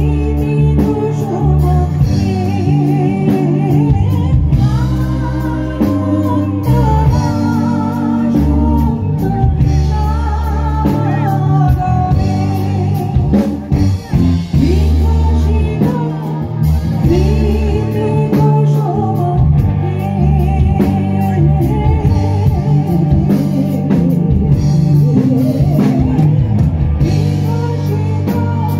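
Live amplified band performance: a woman singing a melody into a microphone, backed by electric guitars, a drum kit and hand drums.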